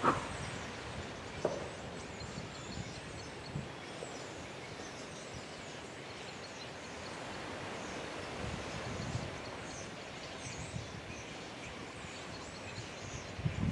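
Steady outdoor background hiss with faint, high chirps and twitters from a murmuration of common starlings wheeling overhead.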